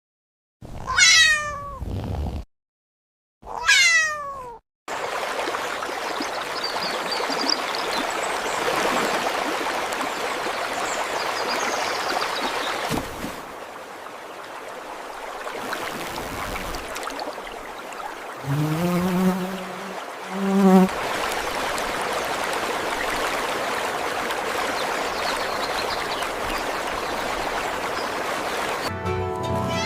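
Cat meowing twice, each call sliding down in pitch, followed by a steady rushing hiss that runs on. About two-thirds of the way through, two lower calls rise in pitch over the hiss.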